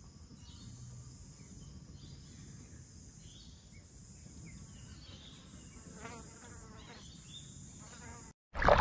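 A steady, high-pitched chorus of insects droning, with a few faint chirps. About half a second before the end it cuts off into a brief, much louder rush of noise.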